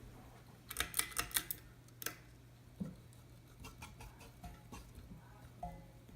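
Hunter Mayfair ceiling fan motor running with a steady low hum. A quick cluster of sharp clicks comes about a second in and another click near two seconds, followed by lighter scattered ticks.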